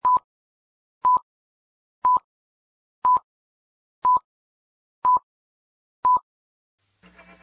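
Short electronic beeps of one steady mid pitch, once a second, seven in all, like a timer or countdown tone. Music starts faintly near the end.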